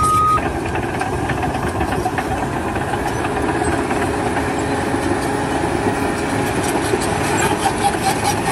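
An engine running steadily, with a short high beep right at the start.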